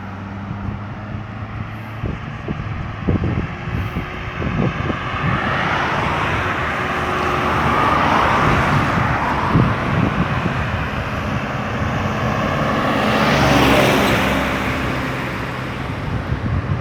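Highway road traffic: a steady engine hum and tyre noise that swells twice as vehicles pass close, about eight and thirteen seconds in.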